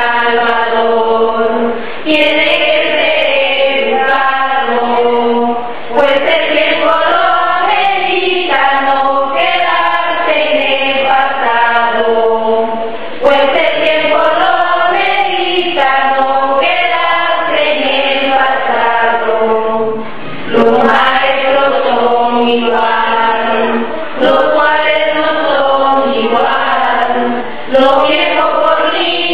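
A choir singing in slow, sustained phrases of a few seconds each, with brief breaths between them.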